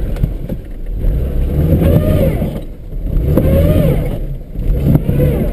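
ZAZ Tavria engine revving hard in swells that rise and fall about three times, heard from inside the cabin: the car is stuck in mud and trying to pull free with a strap-on traction bracelet on only one drive wheel.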